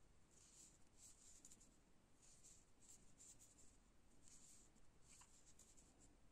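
Faint scratchy rustling of yarn being drawn through loops by a metal crochet hook as single crochet stitches are worked along a row, a soft rustle about twice a second.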